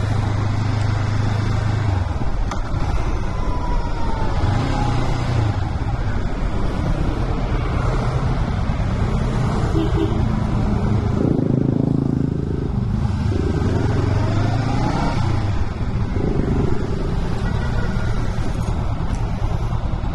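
Motorcycle engine running under way, with steady wind and road noise over it; the engine note shifts in pitch several times.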